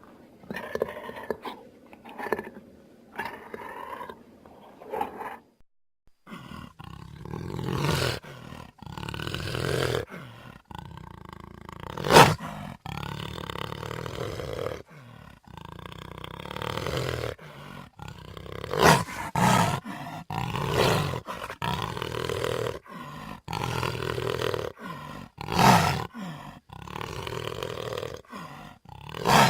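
Baryonyx dinosaur sound effects: a few short, softer growls, then a run of loud drawn-out roars, several of them rising to sharp peaks.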